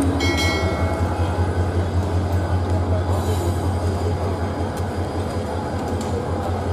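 Passenger train running: a steady low hum and rumble with an even noise of wheels on track, with no clear clickety-clack rhythm.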